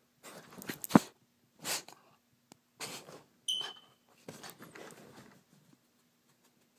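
Jack Russell terrier puppy making a few short, sharp sounds as she plays right at the phone on a bed, the loudest about a second in, with a brief high squeak about halfway through and a soft rustle of bedding after it.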